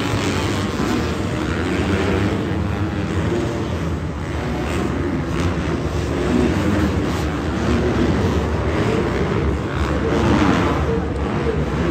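Several motocross dirt bikes racing on an indoor arenacross track, their engines revving up and down together as they ride the turns and jumps.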